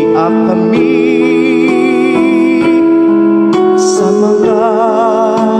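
Music: a woman singing a slow song with wide vibrato over sustained keyboard chords.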